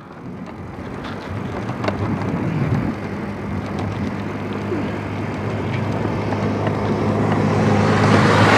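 A motor vehicle's engine coming up from behind and passing, growing steadily louder and loudest near the end.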